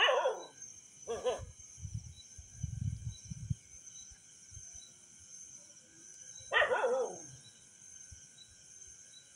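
A dog barks three times, short barks that drop in pitch, near the start, about a second in and again past the middle. Insects chirp steadily, and there are a few low muffled rumbles in between.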